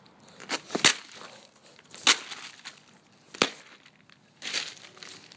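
A pumpkin being smashed: a handful of sharp crunching hits a second or so apart, then a longer crunch near the end.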